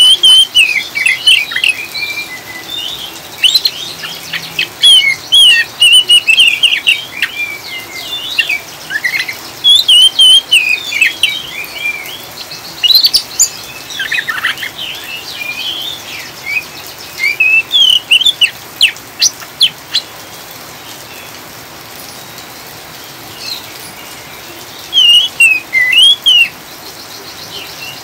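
Oriental magpie-robin (kacer) singing in quick, chattering twittering phrases over a steady hiss of rain. The song breaks off for several seconds about two-thirds of the way through, leaving only the rain, then resumes near the end.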